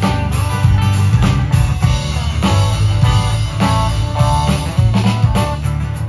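Live band playing an instrumental intro: guitars and electric bass over a drum kit keeping a steady beat.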